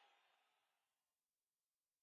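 Near silence: the last of a live audience's applause and crowd noise fading out within about a second, then dead silence.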